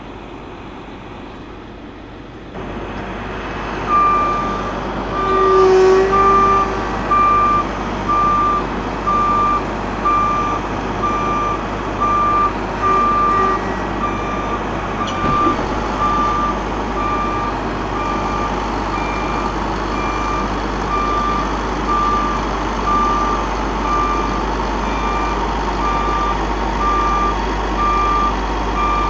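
A heavy vehicle's back-up alarm beeping steadily, about once a second, over the running of a diesel engine, which grows louder about two and a half seconds in. The vehicle is reversing.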